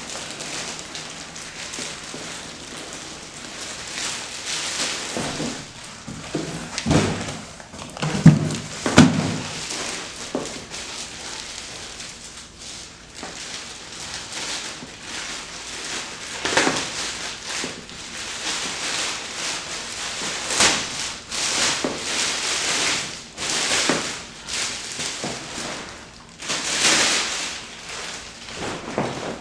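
Crinkling and rustling of packaging and kite material being handled and unpacked, in uneven bursts, with a few louder thumps about a quarter of the way in.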